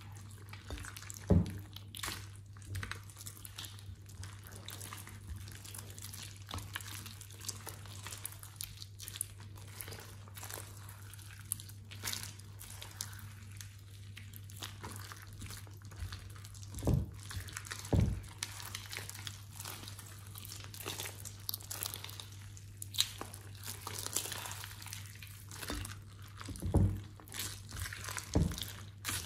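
Hands kneading, squeezing and stretching a thick mass of sticky slime in a glass bowl: wet squelching with many small pops and crackles of trapped air. A few louder low thumps stand out, about a second in, twice around the middle and twice near the end, over a steady low hum.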